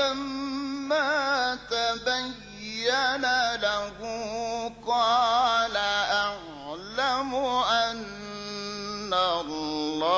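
A man reciting the Quran in the melodic mujawwad style: long, ornamented, melismatic phrases with wavering pitch and held notes, separated by short breaths.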